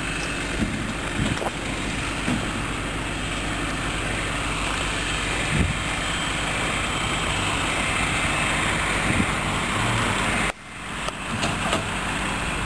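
Truck engine idling steadily. Near the end the sound drops out abruptly for a moment, then comes back.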